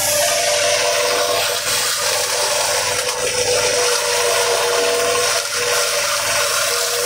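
JF 50 Maxxium forage chopper running under load, chopping whole corn plants and blowing the chopped silage out of its spout: a loud, steady rushing noise with a constant hum from the machine.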